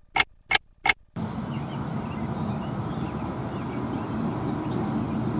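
A few sharp ticks, about three a second, with dead silence between them, cut off about a second in by steady outdoor background rumble with a faint hum and a few faint high chirps.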